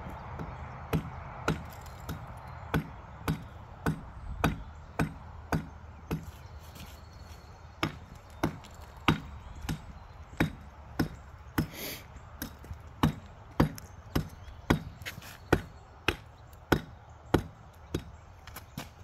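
Hammer striking a concrete pool deck over and over, chipping chunks off its edge. Sharp blows come about two a second, with one short break a third of the way through.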